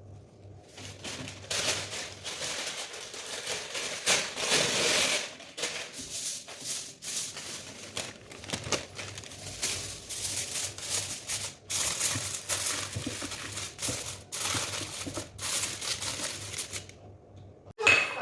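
Kitchen handling noise: irregular bursts of rustling and scraping, broken by short pauses, with a sharp knock just before the end.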